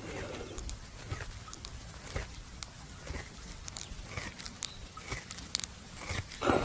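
A resting buffalo chewing its cud: irregular soft crunching and clicking as its jaws grind, with one louder sound near the end.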